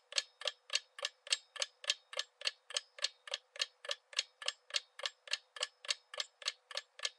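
Countdown timer sound effect: an even, clock-like ticking, about four ticks a second, marking the seconds running out on a quiz question.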